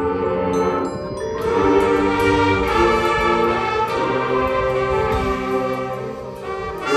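High school marching band playing held brass and woodwind chords, with a few short high bell-like notes about a second in; the band swells about a second and a half in and eases off near the end.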